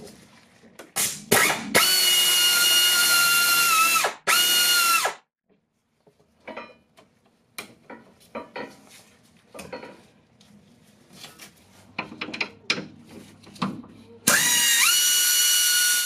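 A cordless power tool's motor whining as it spins out the 12 mm bolts holding the brake line to the front strut. There are several runs in the first five seconds and another near the end that rises in pitch as it spins up. In between are light clicks and knocks of tools and bolts.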